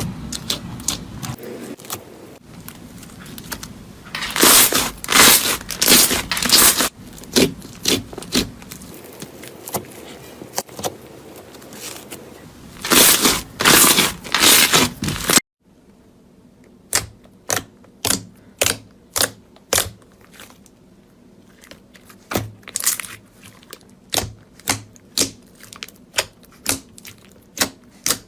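Close-miked crackling and crunching in loud clustered bursts, as a crunchy material is pressed and squeezed. After an abrupt cut, a steady series of sharp clicks follows at about two a second.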